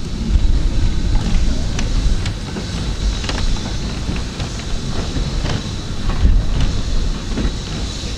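Heritage railway train running on the track: a steady low rumble with irregular sharp clicks of wheels over rail joints, and a faint steady high whine above it.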